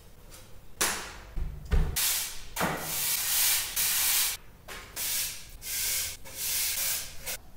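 Broom sweeping a dusty concrete floor: a series of scratchy swishing strokes with short gaps, the longest running from about two and a half to four and a half seconds in.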